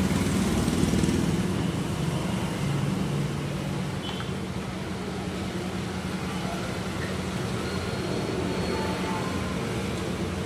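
Steady background traffic noise with a low, continuous hum.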